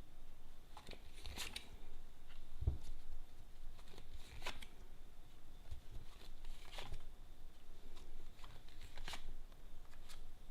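Tarot cards being handled and laid out: a handful of short, sharp card sounds, about one every two seconds.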